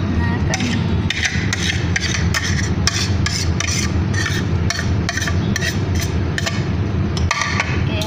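Steady low rumble of a gas stove and kitchen range hood, with a quick run of short scraping strokes, about three a second, starting about a second in and stopping near the end.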